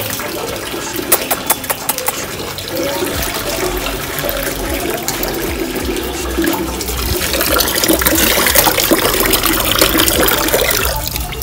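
Running water from a tap splashing into a plastic tub, with water poured from a plastic mug, and a few sharp clicks in the first two seconds.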